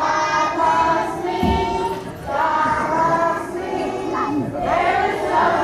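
A group of preschool-aged children singing a song together, in sung phrases with short breaks between them.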